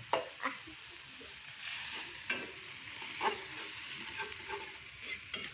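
Chili paste and sliced onion frying in oil in a small frying pan with a steady sizzle, stirred, with about five short scrapes of the utensil against the pan.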